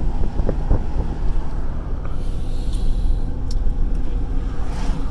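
Steady low road rumble and tyre noise of a car driving on an asphalt highway, heard from inside the cabin. Near the end an oncoming van rushes past with a swelling whoosh.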